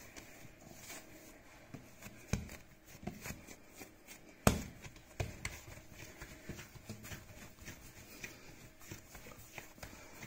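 Hands kneading and rounding a ball of bread dough on a countertop: soft, irregular pats and thumps of dough and palms on the work surface, with one sharper knock about four and a half seconds in.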